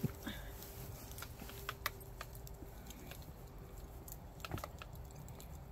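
Wood bonfire crackling: scattered sharp snaps and pops over a faint steady background.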